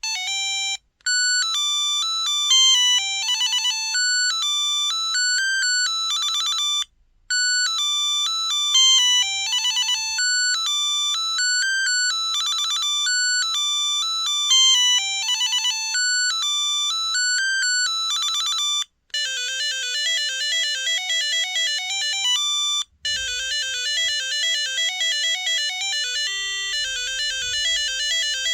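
Samsung Anycall SCH-X140 mobile phone playing its built-in monophonic ringtones, several short electronic beep melodies one after another, each a quick run of stepped notes. Brief gaps between tunes come about 1, 7, 19 and 23 seconds in.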